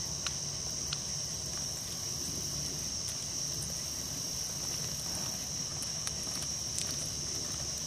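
Night insects chirring in a steady, high-pitched chorus, with a few faint scattered clicks.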